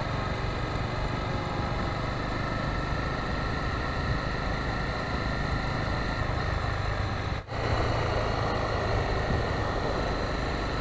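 Motorcycle engine running steadily at low road speed, heard from the rider's seat with wind and road noise. The sound drops out briefly about seven and a half seconds in, then carries on as before.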